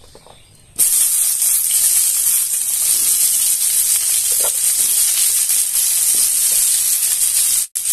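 Cauliflower florets going into hot oil in a kadai and sizzling as they start to fry. The sizzle starts suddenly about a second in, runs loud and steady, and breaks off for an instant near the end.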